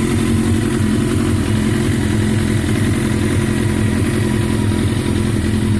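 Suzuki GSX-R 1100 inline-four motorcycle engine running loud at a steady speed, without revving.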